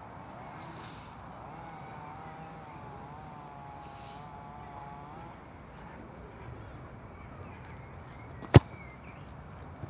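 A football kicked hard once: a single sharp strike of boot on ball, well over a second before the end, as a free kick is whipped over a mannequin wall.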